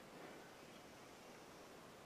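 Near silence: a faint, steady hiss of outdoor room tone.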